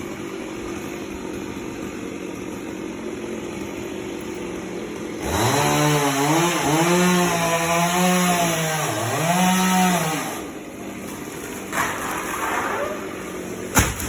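Chainsaw idling, then revved high for about five seconds, its pitch sagging twice as it bites into the coconut trunk, before it drops back to idle. A couple of sharp knocks near the end.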